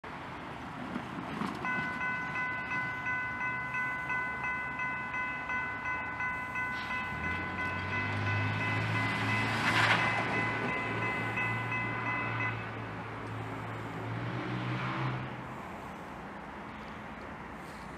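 Railroad grade-crossing warning bell ringing in a steady, rapid pulse, stopping about two-thirds of the way through. Under it, BNSF diesel freight locomotives pass with a low engine drone and rail rumble, loudest about ten seconds in.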